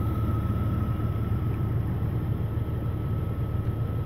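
Idling vehicle engine: a steady low rumble with a thin, steady whine above it.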